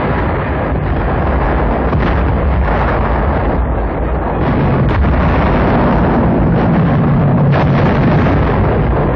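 Artillery shells exploding in a continuous, rumbling barrage, with several sharper blasts standing out.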